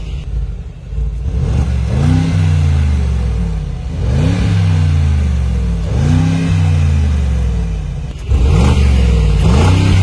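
Mercedes-AMG G63's twin-turbo V8 being revved in a series of throttle blips, about one every two seconds, each rev rising quickly and dropping back to idle. The last revs, near the end, are louder.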